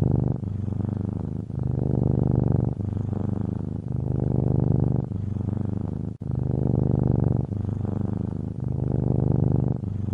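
Domestic cat purring close up: a continuous low purr in a steady rhythm, with a short break about every second and a quarter as the cat breathes in and out.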